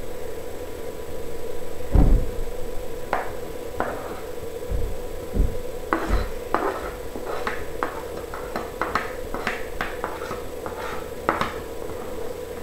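Metal spoon scraping and tapping against a tray while pushing grated onion pulp onto a paper towel: a low thump about two seconds in, a few clicks, then a quick run of sharp taps from about halfway to near the end, over a steady hum.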